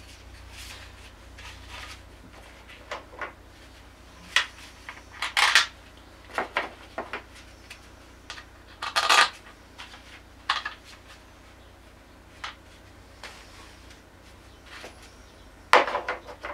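Small metal tools and parts clinking as they are picked up and set down on the scooter's plastic floor panel during engine work: scattered sharp clicks and clinks, the loudest about five, nine and sixteen seconds in.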